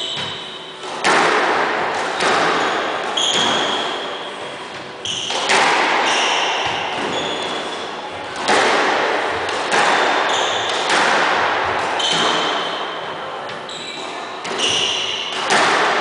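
Squash rally: the ball cracks off the rackets and walls about a dozen times, each hit echoing in the enclosed court. Short high squeaks of court shoes on the wooden floor come between the hits.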